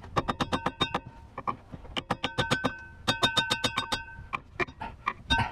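Hand ratchet clicking in three quick runs with a metallic ring, then a few scattered clicks, as the nut on a rear shock absorber's lower mount is worked loose.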